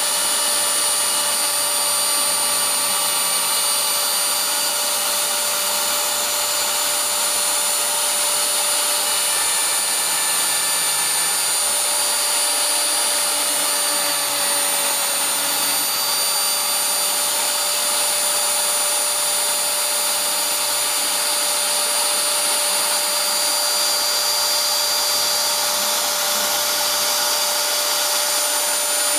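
A DIY desktop CNC router V-carving lettering: the spindle motor runs with a steady whine made of several high tones, while short shifting tones from the stepper motors come and go as the bit moves through the cut.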